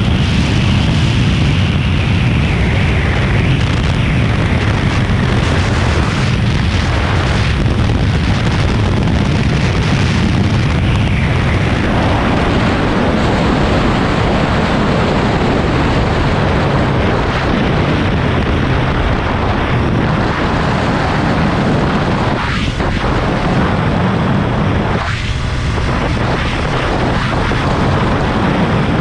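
Heavy wind noise buffeting the microphone of a Triumph Speed Triple 1200 RS at high speed, with the bike's inline-three engine faintly rising and falling in pitch beneath it.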